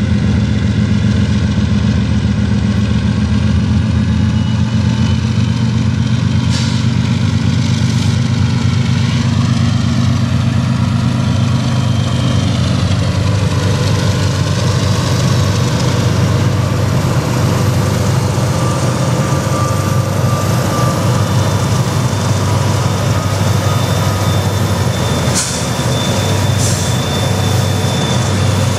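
A lashup of Union Pacific diesel-electric locomotives, a wide-cab road unit followed by EMD SD40-2s, passing close as it pulls a freight train away from a stop, its engines working under load with a steady deep drone. A few sharp clicks come about a quarter of the way in and again near the end.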